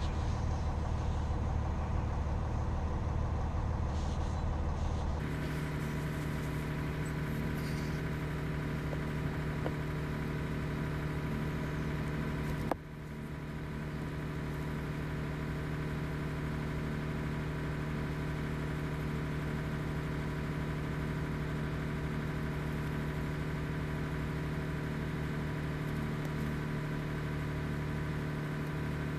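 An engine idling steadily with a low hum. Its tone shifts about five seconds in, and a short click comes about halfway through.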